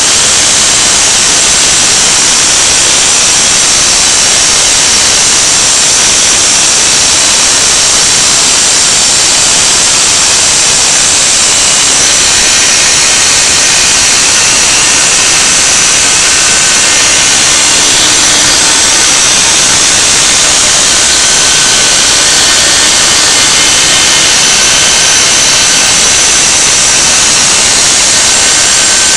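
Small CNC router milling a pocket into a softwood board with an end mill. The spindle motor gives a steady high whine under a loud, even rushing noise from the vacuum nozzle pulling away the chips.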